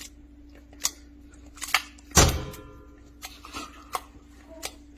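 Metal spoon knocking and scraping against a stainless steel pan as risotto is stirred to bind in butter and cheese (mantecatura): scattered sharp clicks, with one louder knock and thud about two seconds in. A steady low hum runs underneath.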